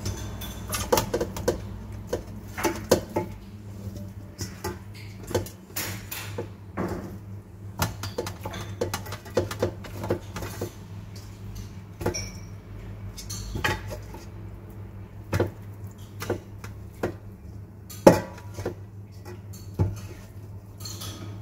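Raw pork feet being handled and shifted inside a stainless steel stockpot, giving irregular knocks and clanks against the metal pot, over a steady low hum.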